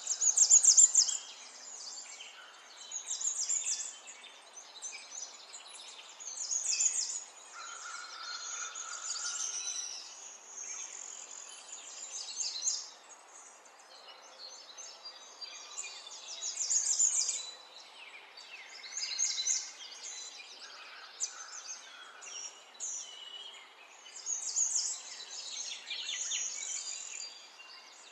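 Metal spoon scraping fried chicken pieces and cooked rice from a bowl into a nonstick pan, in irregular bursts of scratchy scraping and rustling every second or two.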